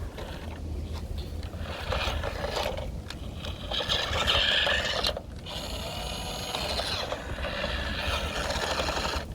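Toy RC dump truck's small electric motor and plastic gearbox whirring as it drives, with two brief pauses.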